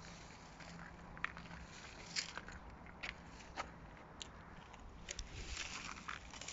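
Faint footsteps crunching over dry, cracked soil and dry grass: scattered single crunches and clicks, growing denser and crackly near the end.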